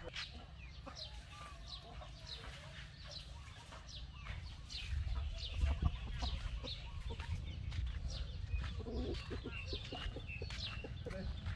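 Chickens clucking among many short, falling chirps of small birds, over a steady low rumble that grows louder about halfway through, with a single knock just after that.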